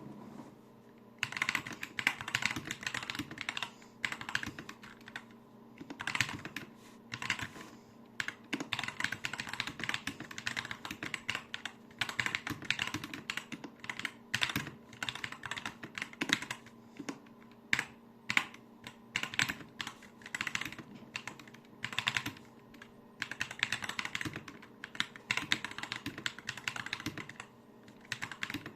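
Typing on a mechanical keyboard fitted with Akko Lavender Pro V3 switches: runs of rapid keystrokes a few seconds long, broken by short pauses.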